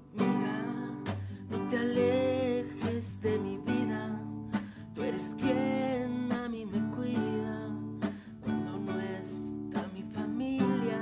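Song intro of strummed acoustic guitar with a wavering melody line over it.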